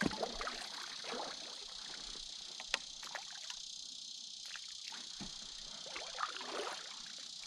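Kayak on the move on a river: soft water and hull noises from paddling, with a sharp knock a little under three seconds in, over a steady high insect buzz.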